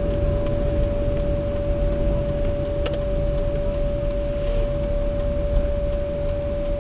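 Car engine and road noise heard from inside a moving car: a steady low rumble, with a thin steady tone over it.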